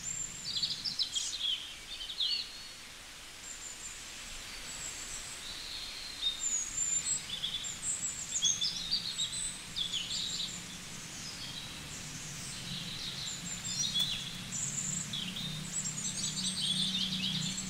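Small birds chirping in the background, with many short high calls scattered throughout. A faint steady low hum comes in about halfway through.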